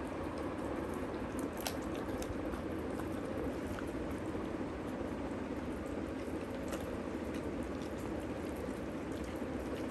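A Siberian husky eating soft mashed food from a steel bowl and a hand: continuous wet chewing and licking, with faint small clicks now and then.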